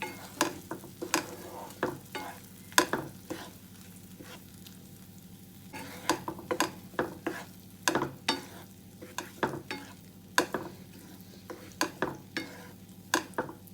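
Ginger paste frying in ghee in a pan with a faint sizzle, while a spatula scrapes and knocks against the pan in short, irregular strokes as it is stirred. The strokes thin out about four to six seconds in. The paste is being roasted until its water cooks off.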